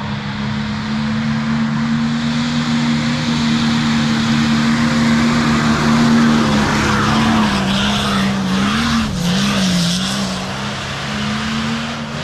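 Off-road 4x4 engine running hard at high, steady revs, the pitch wavering up and down in the second half, with a loud hiss of wheels spinning on the dirt that swells through the middle. Cuts off suddenly at the end.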